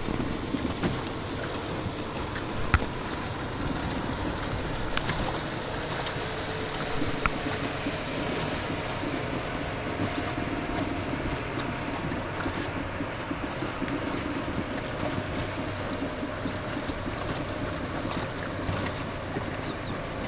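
Small motorboat under way: a steady engine drone mixed with the rush of water against the hull, with a few sharp knocks along the way.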